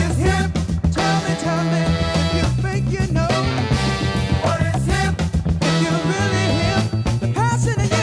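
Background music: an upbeat ska-style song with a steady bass line, guitar and a singing voice.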